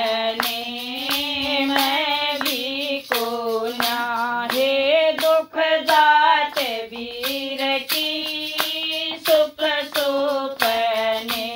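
A woman singing a Haryanvi folk song in a bending, ornamented melody, with regular hand claps keeping time.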